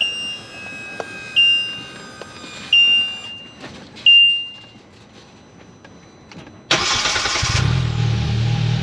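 Short electronic warning beeps from the dash, four of them about a second and a half apart, then about seven seconds in the starter cranks briefly and the 2022 Polaris Slingshot R's 2.0-litre four-cylinder engine catches and settles into a steady idle.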